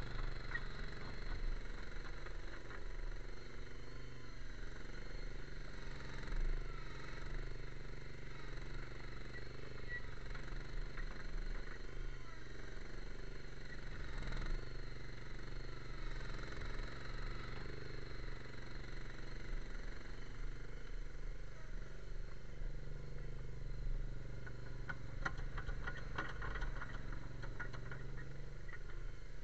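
Avant 218 compact loader's engine running steadily, its pitch wavering up and down as the loader drives and works its bucket. A patch of clatter comes near the end.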